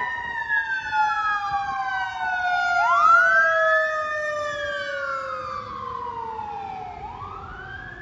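Fire engine siren wailing. The pitch falls slowly, sweeps quickly back up about three seconds in and again near the end. It is loudest as the truck passes around three seconds in, then fades as it moves away.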